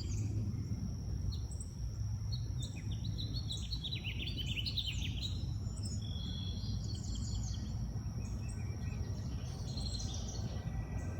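Songbirds chirping and calling over a steady low rumble. The chirps are busiest for a few seconds near the start, with a faint, thin, steady high whine behind them.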